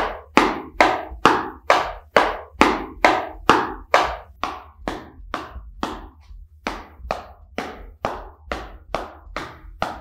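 Bare feet stamping on a straw floor mat, left and right in turn, in a steady rhythm of about two and a half strikes a second.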